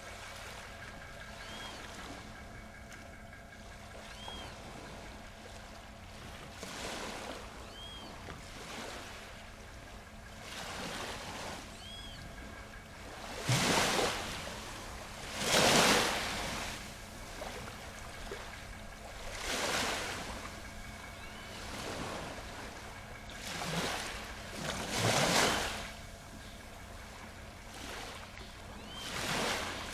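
Ocean waves breaking and washing ashore, the surf swelling and fading every few seconds, with the biggest breaks about halfway through and again near the end. Faint short high chirps recur every few seconds in the background.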